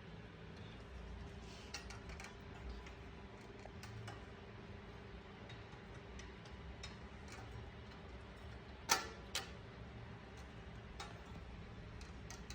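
Faint, irregular clicks and ticks as the plastic spoke protector (dork disc) behind a road bike's rear cassette is handled, with two sharper clicks close together about nine seconds in.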